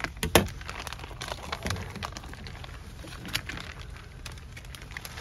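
Irregular clicks, knocks and rustling of gear being handled, with one sharper knock about half a second in, over a steady low rumble.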